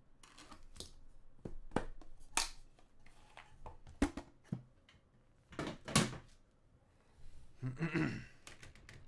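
Utility knife slitting the paper seal on a card box, then scattered clicks and knocks as the box lid is lifted off and the box is handled on a desk mat; the loudest knock comes about six seconds in.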